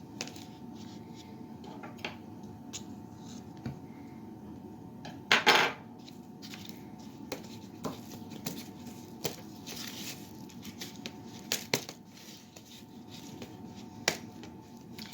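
A spoon clinking and scraping against a mixing bowl while working a thick suet mixture of peanut butter, grease, cornmeal and oats, in scattered knocks. The loudest is a quick double knock about five and a half seconds in.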